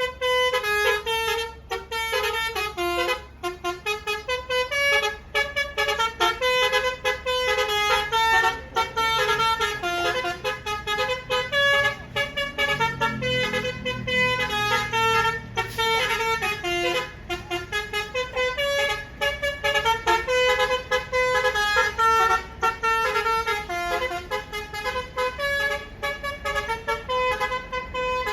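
An Indonesian bus's telolet basuri musical horn plays a rapid tune of short stepped notes without a break, over a steady low hum. A brief lower rumble comes in about halfway through.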